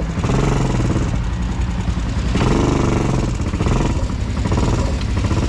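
Honda Recon 250 ATV's single-cylinder four-stroke engine running steadily at low revs.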